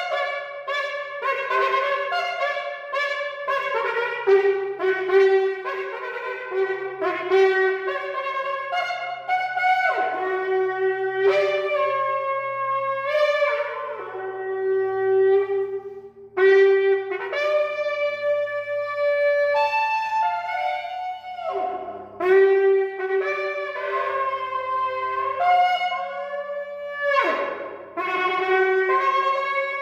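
A 36-inch shofar is blown in a long run of sustained, bright notes that step between several pitches. A few notes swoop sharply upward, and there are short breaks for breath.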